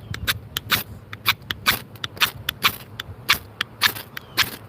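Rosecraft F3 fixed-blade knife scraped again and again along a ferrocerium rod, quick sharp strokes about five a second in an uneven rhythm, striking sparks.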